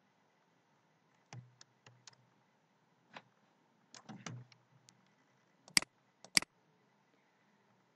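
Faint, scattered clicks of a computer mouse and keys, the two sharpest about six seconds in, about half a second apart.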